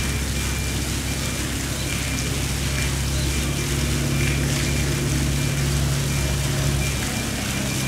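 Steady low mechanical hum under a constant hiss.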